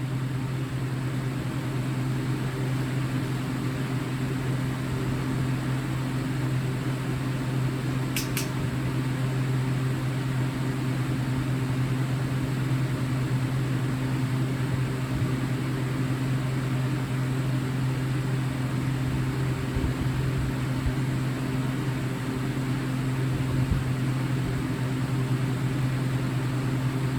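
Steady mechanical hum of a running fan-like motor, with one short click about eight seconds in.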